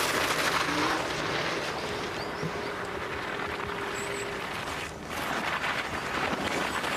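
Skis running fast over rough, rutted snow: a rushing scrape that swells and fades as the skier passes the trackside microphones.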